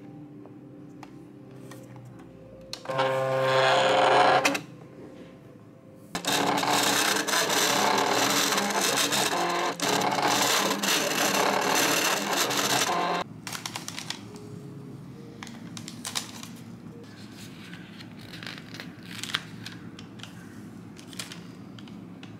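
Electronic sticker-cutting machine at work: a short motor whine about three seconds in as it moves the sheet, then its carriage and rollers run for about seven seconds cutting a sheet of round seal stickers, stopping abruptly. Afterwards only light clicks and taps.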